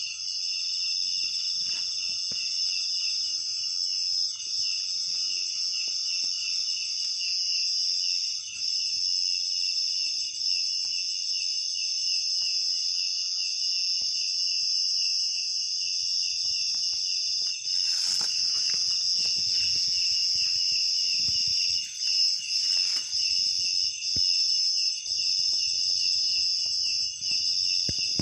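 Chorus of insects chirring steadily on several high pitches, one of them in a fast pulsing trill. A few brief knocks and rustles come about two-thirds of the way through.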